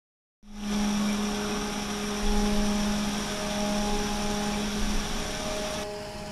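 A steady engine-like drone, traffic or aircraft noise with a low humming tone, from a film soundtrack playing in a cinema hall. It starts suddenly just under half a second in and turns duller near the end.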